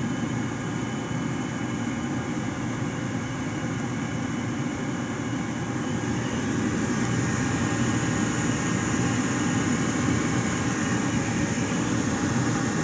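Gas furnace circulating blower running steadily, a rush of air with a motor hum. It is the blower running on after the burner has shut off, before it cuts out on its own.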